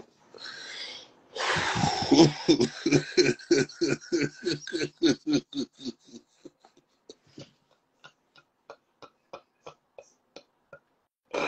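A man laughing hard: a loud burst about a second in, then a long run of rapid, rhythmic 'ha' pulses, about four a second, that fade into faint, sparse gasps over the second half.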